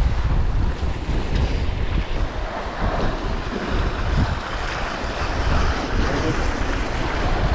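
Strong wind buffeting the microphone in a steady rumble, with sea waves surging and breaking against the rocks.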